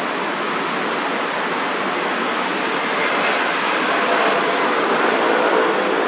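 Steady noise of city traffic, swelling a little in the second half with faint whining tones.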